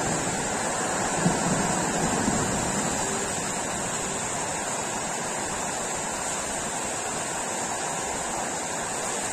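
Steady hiss of heavy rain in a thunderstorm, with a faint low thunder rumble dying away in the first couple of seconds.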